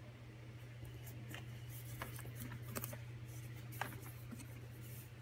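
Shrink-wrapped cardboard box being handled and turned over, its plastic wrap giving off scattered crinkles and scrapes, over a steady low hum.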